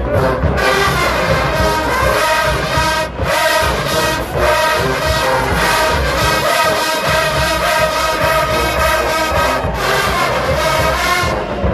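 Marching band's brass section playing loudly in full chords, with short cut-offs about three and four seconds in and again near the end.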